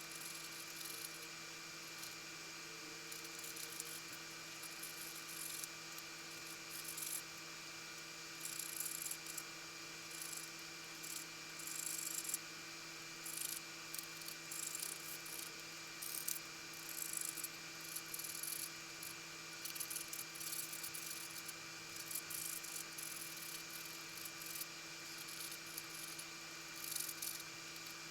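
Irregular, short scratchy scraping, likely a tool scraping old gasket adhesive out of a wood stove door channel, over a steady electrical hum.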